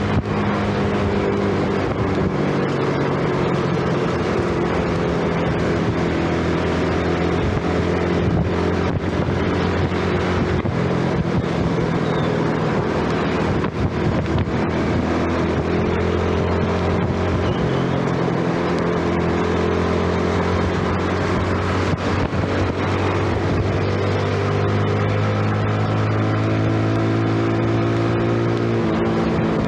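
Yamaha underbone motorcycle's single-cylinder four-stroke engine running steadily while riding, its pitch drifting slowly down and back up with engine speed, over a steady hiss. The loudness dips briefly about halfway through.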